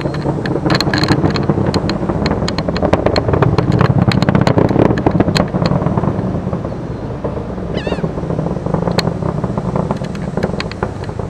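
Distant roar of a climbing Falcon 9 rocket's first stage (nine Merlin engines): a deep rumble with dense crackling, easing off a little about halfway through.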